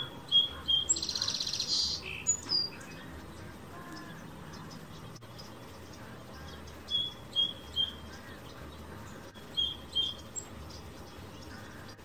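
Small songbird chirping: short high chirps in little groups of two or three, with a fast buzzy trill about a second in.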